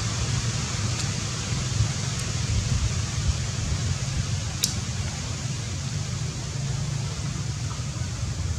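Steady background noise, a low rumble with hiss above it, with no clear source, and a single sharp click about four and a half seconds in.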